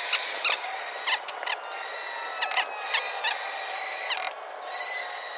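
Electric drill spinning a rubber eraser wheel against a painted steel trunk lid to strip adhesive residue: a steady motor whine with short squeaks of the rubber rubbing on the panel.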